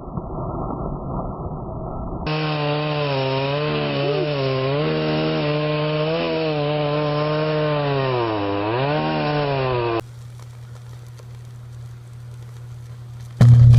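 Chainsaw engine running for several seconds, its pitch wavering up and down and dipping sharply then recovering near the end. The sound is spliced between shorter clips: a muffled noisy stretch before it and a steady low hum after it.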